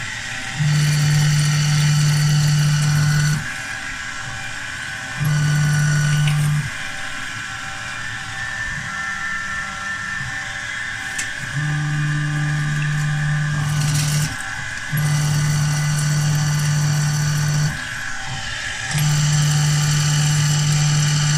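A machine's motor hum, a steady low tone with a high whine over it, starting and stopping repeatedly in stretches of one to three seconds.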